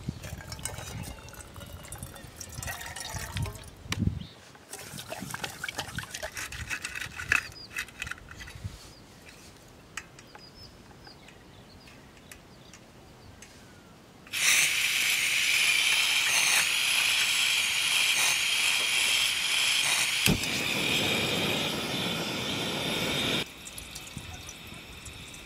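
Water poured into a cooking pot: a steady rushing splash for about nine seconds that starts and stops abruptly, after a stretch of scattered handling clicks and rustles.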